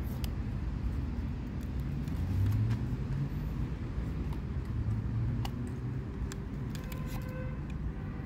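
Steady low rumble, with light clicks and leather rubbing as a snap strap on a leather knife sheath is opened and a ferro rod is drawn out of its loop near the end.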